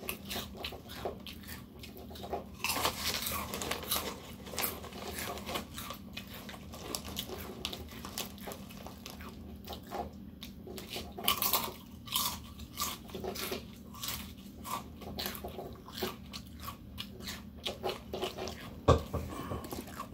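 Close-up crunching and chewing of thick kettle-cooked potato chips, a run of irregular crisp crunches, with one sharp loud crack near the end.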